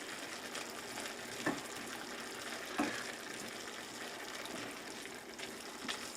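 Chicken and rice noodles sizzling and bubbling in a pan on the heat while being stirred, with three light knocks of the stirring utensil against the pan.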